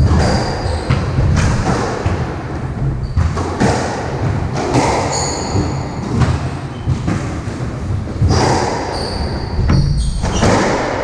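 Squash rally: the ball struck by rackets and hitting the court walls, irregular sharp impacts ringing in the enclosed court, with short high squeaks of court shoes on the hardwood floor.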